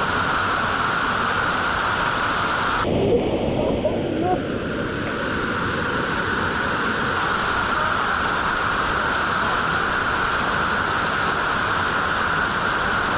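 Steady rushing water from a waterfall. About three seconds in, the sound turns suddenly muffled for about a second, with a few thumps, then the rush comes back.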